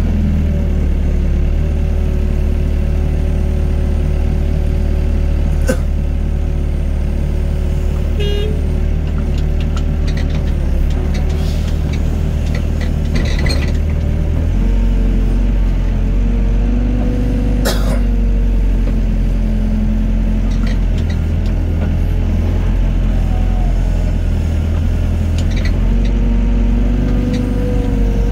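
Excavator's diesel engine running under load, its note shifting as the hydraulics work, with a few sharp knocks.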